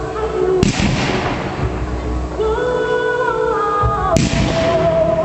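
Two firework shells bursting, one less than a second in and one about four seconds in, each sharp crack trailing off in a fading hiss, over music with long held notes.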